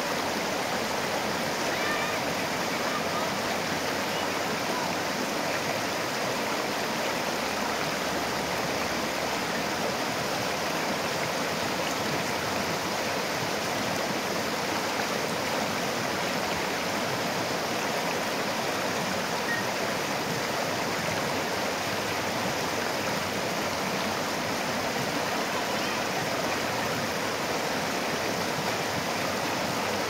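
Shallow rocky river water rushing and splashing over stones in a small cascade, a steady, even rush of running water.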